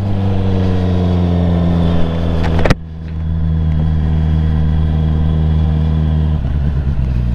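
Honda CBR650R inline-four with an Akrapovic exhaust and dB killer fitted, running at steady revs while riding. A sharp click a little under three seconds in, followed by a brief dip in loudness before the engine sound recovers.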